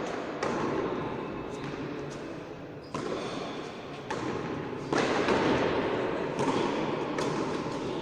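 A frontón ball being played in a rally, hitting the wall and court in a string of sharp smacks at irregular gaps of about a second, each hit ringing with echo.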